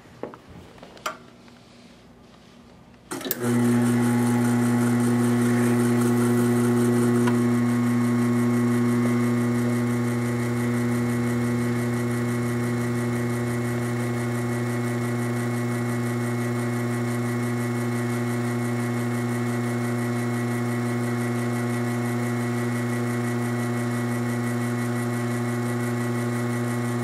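Espresso machine pump switched on about three seconds in, after a few light clicks, and humming steadily as it pushes water through the portafilter while two espresso shots brew into shot glasses.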